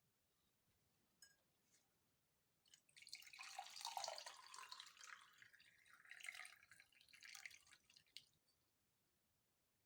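Liquid being poured in a continuous splashing stream for about five seconds, starting about three seconds in and stopping near the end.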